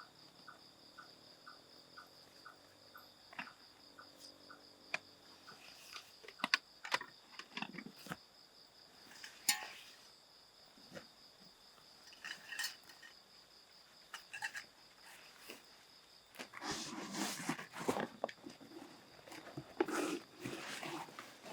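Steady high-pitched insect drone, with a faint regular ticking of about three a second for the first few seconds. Over it come scattered clicks and knocks of things being handled, turning to louder rustling and handling noise in the last few seconds.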